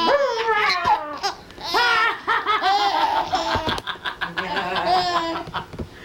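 A young child laughing and squealing in high-pitched bursts.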